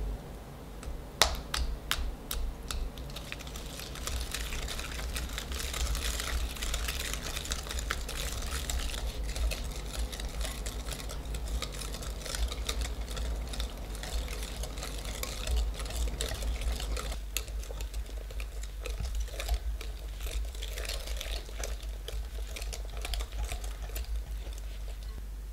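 Wire whisk beating batter in a glass mixing bowl: a few sharp clinks of the metal against the glass at first, then fast, continuous clicking and scraping of the tines against the bowl.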